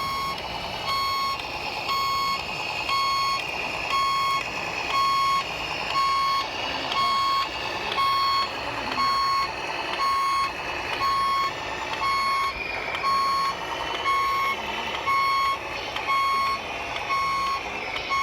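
Reversing alarm on a radio-controlled truck or machine, a single steady tone beeping about once a second, each beep about half a second long.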